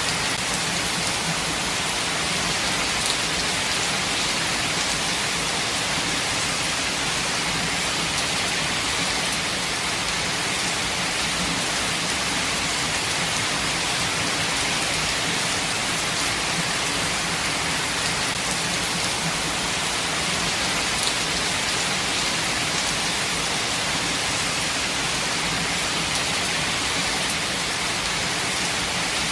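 Steady rain falling in a forest: an even hiss that stays constant throughout, with a few single drops standing out now and then.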